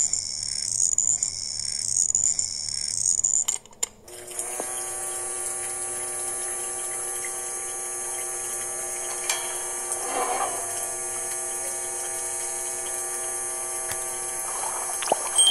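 A rhythmic, pulsing engine-like sound for the first few seconds, which breaks off. About four seconds in, a small DC-motor water pump starts and runs with a steady high whine, pumping water through a hose into the mini tanker.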